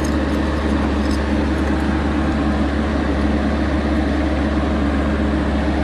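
Excavator's diesel engine running steadily, a constant low drone that holds an even pitch.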